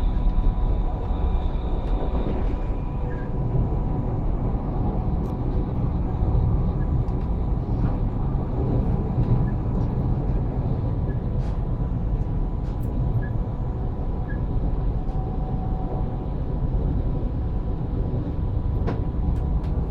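Pendolino ED250 electric train running steadily: a continuous low rumble with faint, steady whining tones over it.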